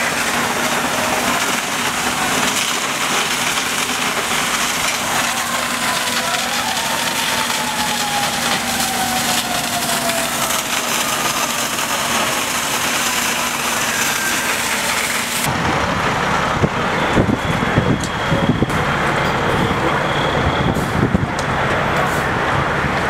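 Steady hiss at a heavily smoking building fire, with a low hum and a whine that rises briefly and then slowly falls about a third of the way in. About two-thirds in the sound changes abruptly to the rumble of a fire engine's engine running, with scattered knocks and clicks.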